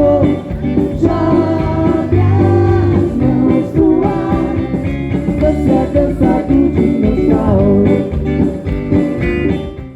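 Live band music with a voice singing over a steady bass line. The song stops near the end.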